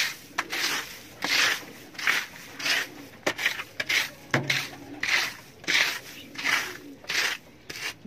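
A broom sweeping a dirt floor strewn with wood shavings, in regular brisk strokes of about one and a half a second, each a short scratchy swish.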